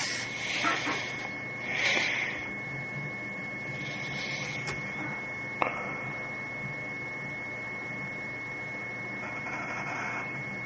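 Drawing strokes scratching on paper: a few short strokes in the first half and again near the end, with one sharp tap about five and a half seconds in. A steady faint high whine runs underneath.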